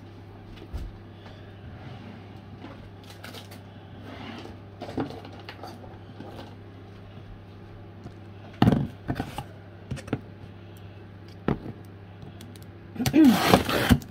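Scissors and a cardboard parcel being handled: scattered taps, clicks and rustles, then near the end a loud scraping, tearing burst lasting about a second as the box is opened.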